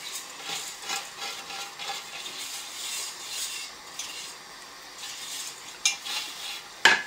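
Freshly steamed couscous being scraped and shaken out of a metal couscoussier steamer basket into a dish: a repeated grainy rustle and scrape of the grains, with two sharp knocks near the end as the metal basket strikes the dish.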